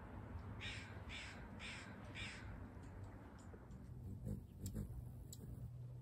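A crow cawing four times in quick, even succession, followed by a few sharp high clicks.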